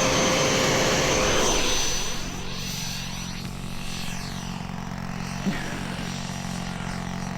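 FMS 70mm electric ducted fan on a 4S battery, a high steady whine after spooling up, dropping in level about two seconds in as the model jet moves away.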